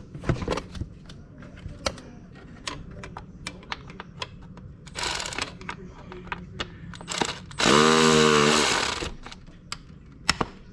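Ignition coil being worked out of a V6 spark-plug well: scattered small clicks and taps, then about 8 s in a loud creaking screech lasting about a second as the stuck coil comes loose, which sounds like something snapped.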